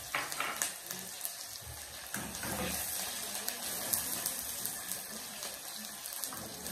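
Onions sizzling steadily in hot oil in an aluminium pot, with a wooden spoon clicking and scraping against the pot as they are stirred.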